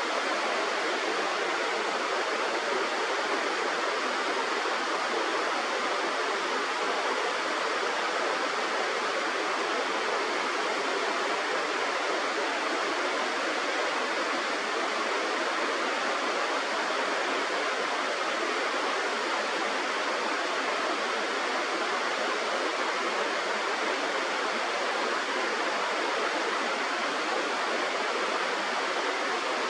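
Steady rush of flowing river water, unchanging throughout.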